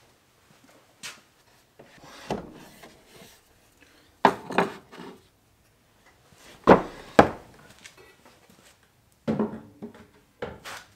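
Knocks, thuds and clatter of wood and tools being handled and set down in a small workshop, with rubbing and shuffling between them; the loudest are a pair of sharp knocks about seven seconds in.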